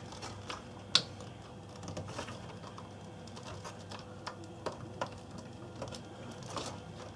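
Faint small plastic clicks and taps as a ribbon-cable connector is pressed and worked onto a pin header, with one sharper click about a second in. The connector does not go all the way in, held back by one overlong pin.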